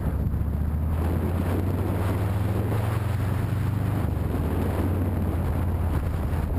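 Motorcycle engine running steadily under way, with wind buffeting the microphone; the engine note shifts slightly lower about four seconds in.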